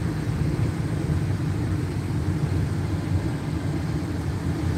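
Steady low rumble of a car's engine and tyres, heard from inside the cabin while it drives slowly in city traffic.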